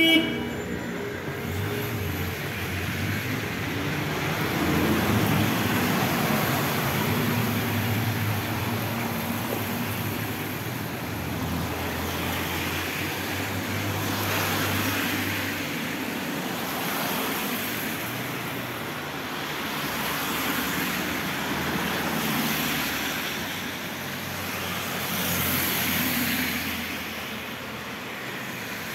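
Street traffic on a wet road: car tyres hiss on the wet asphalt, swelling and fading every few seconds as vehicles pass. A low engine hum runs under it through the first half.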